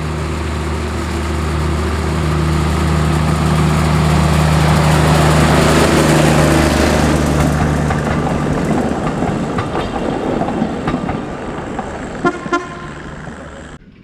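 A narrow-gauge diesel locomotive's engine runs as it hauls a train of coaches past, building up and then fading as the coaches roll by. A few sharp wheel clicks over rail joints come near the end, and then the sound cuts off suddenly.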